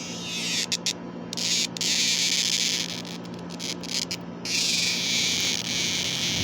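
Male superb dog day cicada buzzing in harsh bursts: two long buzzes, each a second or more, broken by short stuttering ones.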